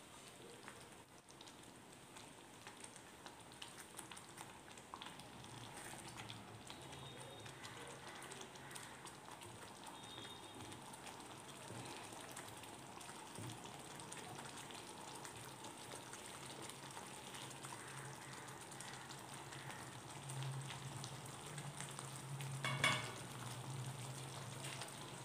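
Cream-enriched curry gravy with paneer simmering in a pan, a faint steady sizzle with small bubbling pops, stirred with a wooden spatula at the start. A short clatter near the end.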